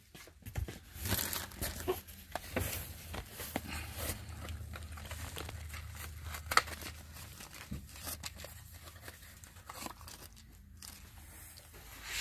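Packaging being handled: plastic and paper crinkling and tearing in irregular spurts, with scattered small clicks and one sharper knock about six and a half seconds in.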